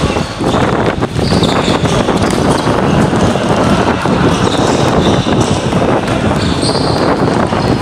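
Basketball bouncing on a hard court amid players' running and shuffling footsteps during a pickup game, with a couple of short high squeaks, about a second and a half in and near the end.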